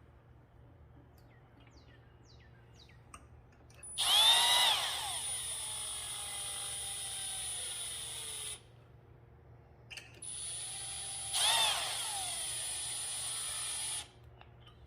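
Cordless drill spinning a cup hook into a wooden board, in two runs of a few seconds each: the first about four seconds in, the second near ten seconds. Each has a loud surge near its start where the motor's whine bends up and then sags before running on steadily and stopping.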